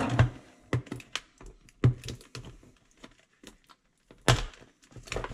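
Phone packaging being handled and worked open by hand: scattered sharp clicks and taps, with a louder rustling scrape about four seconds in.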